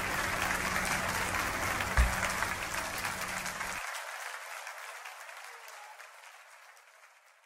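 Applause of many hands clapping, fading out gradually over the last few seconds. There is a single low thump about two seconds in, and a low hum underneath cuts off suddenly just before the halfway point.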